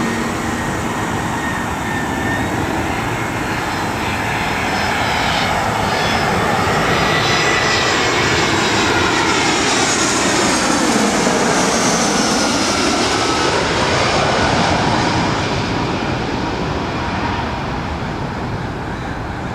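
Airbus A320 jet airliner on final approach passing low overhead: the engine roar and whine build, the pitch sweeps downward as it goes over about halfway through, and the sound eases off as it flies away toward the runway.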